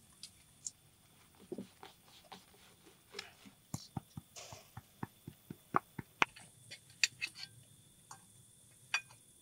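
Knife cutting food on a plate: a run of irregular sharp taps and clicks, a few a second at their busiest, with soft rustling between.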